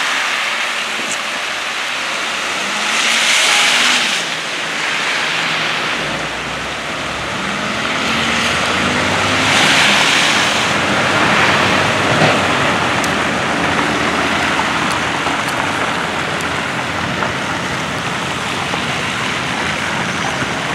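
Snow plow trucks driving along a slushy road: a steady hiss of tyres and plow blades through wet snow, with two louder surges as trucks pass, about three seconds in and again about ten seconds in. A truck engine's pitch rises slowly in the middle.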